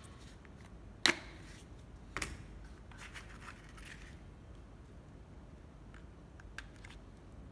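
Sharp plastic clicks and knocks from handling a Makita 12V cordless drill: one loud click about a second in, a smaller double click a second later, then brief scratchy rustling and a faint tick near the end.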